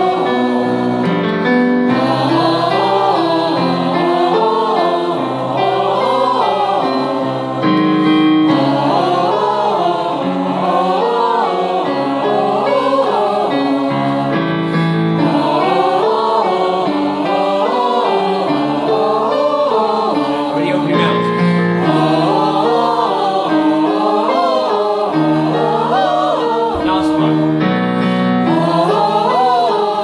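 Choir singers singing a vocal warm-up exercise together, repeated runs of notes rising and falling, over chords played on a digital piano.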